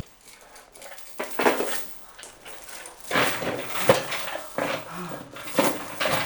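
A dog barking several times in short bursts.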